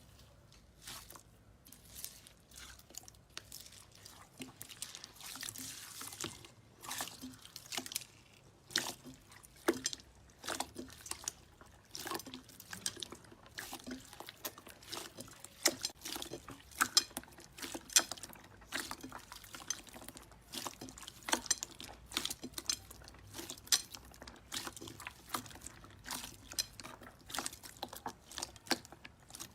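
Slime being squeezed and poked by hand, making an irregular run of wet clicks and pops, several a second, with a short wet hiss a few seconds in.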